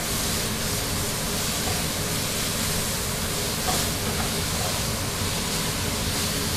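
Duck meat sizzling and steaming in a hot pan just after a little water is added: a steady hiss, with a light tap a little over halfway through.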